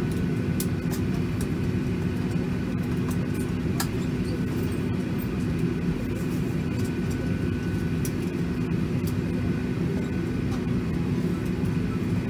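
Steady cabin hum inside a Boeing 737-800, a low drone with one steady low tone and fainter high tones over it, with scattered faint clicks.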